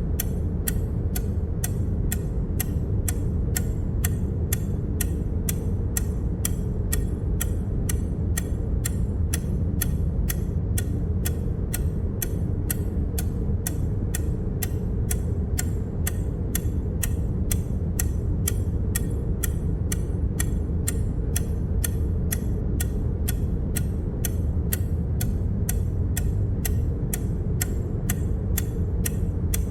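Evenly spaced ticking sound effect, about two ticks a second, each tick one step of the count, over a steady low rumble.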